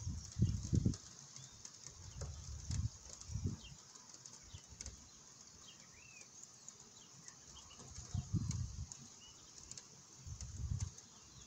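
Gusts of wind buffeting the microphone in irregular low rumbles, each lasting about a second, over a steady hiss of rain; birds chirp faintly throughout.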